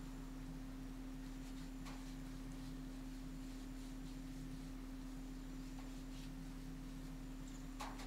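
A steady low hum on one pitch, with a few faint clicks, the clearest one near the end.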